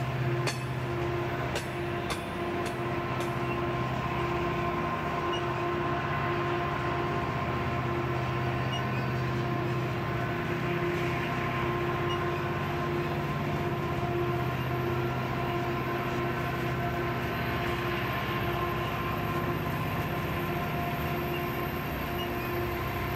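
Tank cars of a BNSF oil train rolling slowly past up the grade: a steady rumble of steel wheels on rail, with a steady thin whine over it. A few sharp clicks come in the first few seconds.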